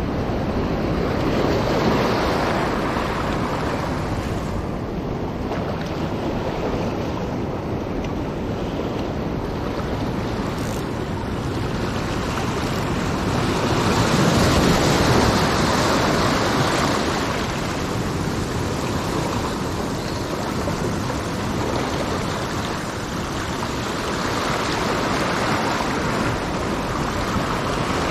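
Small waves of surf washing in and breaking over rocks at the water's edge: a continuous wash that swells and ebbs in surges, loudest about halfway through.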